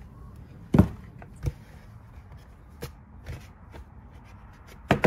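Cardboard game board and box being handled and set down on a table: a few short knocks and taps, the loudest about a second in and another at the very end.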